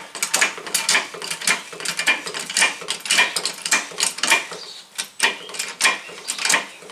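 Hydraulic floor jack being pumped by its long handle to raise a car, a metallic clank with each stroke, about two a second.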